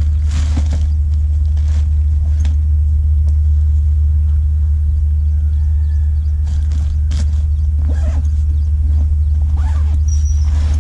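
Steady, loud low rumble, with short rustles and clicks as a backpack and a plastic carrier bag are handled, a cluster of them about seven and ten seconds in.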